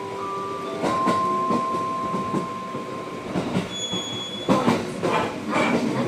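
Aichi Loop Railway 2000-series train pulling out of a station, heard inside the car: wheels clacking over rail joints and points with a steady rumble, the clacks getting louder a little past the middle, and a short high wheel squeal about four seconds in. The last notes of the in-car chime ring on over the first few seconds.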